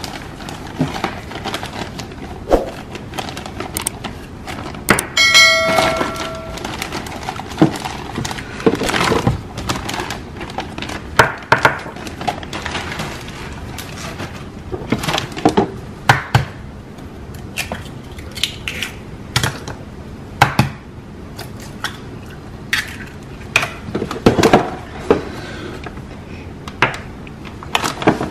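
Kitchen food-prep handling sounds: a plastic bag of baking mix rustling as it is emptied into a ceramic bowl, eggs tapped and cracked against the bowl, and scattered clicks and knocks of things set down on the counter. About five seconds in there is one short ringing tone.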